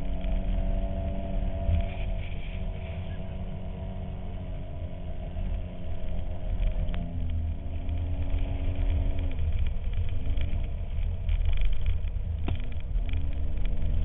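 Polaris RZR 800 side-by-side's four-stroke twin-cylinder engine running under way through snow, with low wind rumble on the windscreen-mounted camera. Its note holds steady for several seconds, then drops and climbs again a few times as the throttle is eased and reapplied. Two sharp knocks come about halfway through and again near the end.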